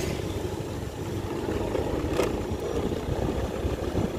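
Motorcycle engine running steadily while riding along a wet road, with a low rumble of road and wind noise and a single brief click about two seconds in.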